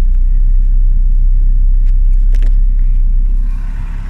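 Off-road 4x4's engine and drivetrain rumbling steadily while the vehicle crawls along a rough track. There are a few short clicks about two and a half seconds in. The low rumble drops off about three and a half seconds in.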